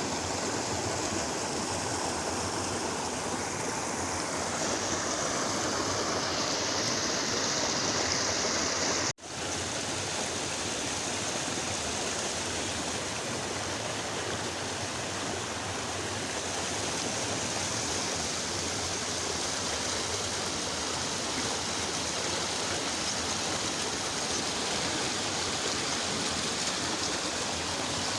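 Flowing water rushing steadily, a stream or small waterfall. The sound cuts out for an instant about nine seconds in, then resumes.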